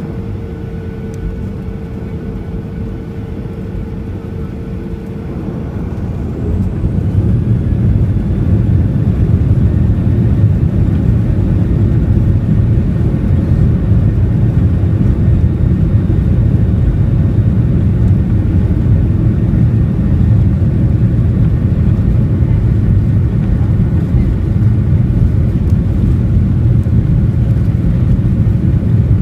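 Aeroplane engines going to takeoff power: a steady whine over engine noise gives way about six seconds in as the sound swells over a couple of seconds into loud, steady engine noise that holds through the takeoff.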